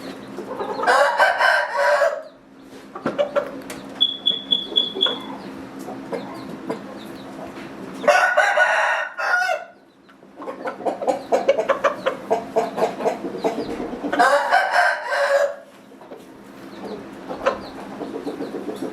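Roosters crowing three times, each crow lasting a second or more, with clucking between the crows.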